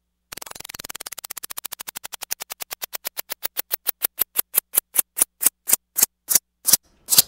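Flip-clock countdown sound effect: a run of sharp flip clicks, one per number card turning over, very rapid at first, then slowing and growing louder until a last click near the end.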